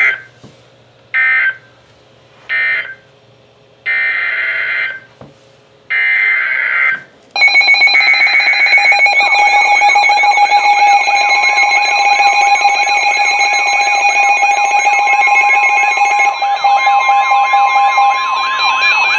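A NOAA weather radio broadcast sends its alert data: three short digital bursts, then two longer ones about a second each. About seven seconds in, several weather alert radios go off together, triggered by a new severe thunderstorm warning. Their alarms mix fast warbling siren-like tones with steady shrill tones, and a steady attention tone joins a few seconds later and holds to the end.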